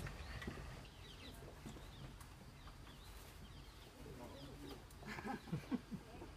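Faint outdoor ambience with scattered high chirps of small birds, and people's voices in the distance coming in about five seconds in.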